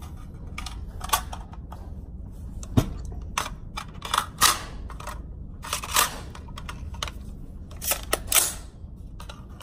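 About ten sharp metallic clicks and clacks, spaced unevenly, from an AR-15 pistol being worked by hand: magazine and action handled while trying to seat a magazine that the magazine catch will not hold.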